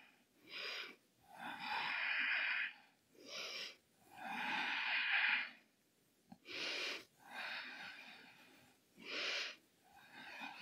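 A woman breathing slowly and deeply while holding a stretch. About four cycles of audible in-and-out breaths, a short breath alternating with a longer one, with brief quiet between them.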